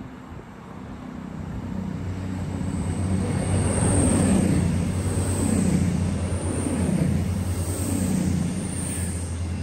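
Class 220/221 Voyager diesel multiple unit approaching and passing. Its steady engine hum builds over the first few seconds, then swells and fades again about every second and a half as the train goes by.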